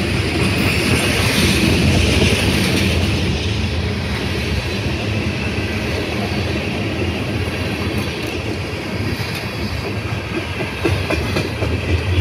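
Freight train's tank cars rolling past close by: steel wheels on the rail with a steady rumble and clickety-clack over the joints, and a faint high wheel squeal in the first few seconds. A few sharper clacks come near the end as the last car goes by.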